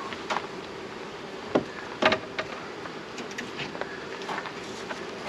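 Honeybees buzzing steadily around an opened hive, with a few sharp knocks from hive equipment being handled, the loudest about two seconds in.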